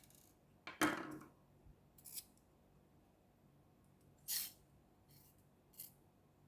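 Four short, sharp scraping clicks from the plastic parts of a phone holder being handled and fitted back together, the first, about a second in, the loudest.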